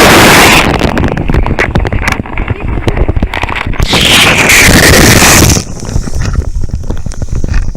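Loud rushing, buffeting noise on the microphone, surging twice, with scattered knocks in between.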